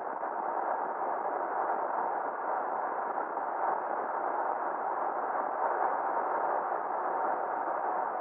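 Steady, muffled road and wind noise from a Ford F-350 pickup driving along at a constant pace, with a faint steady hum running through it.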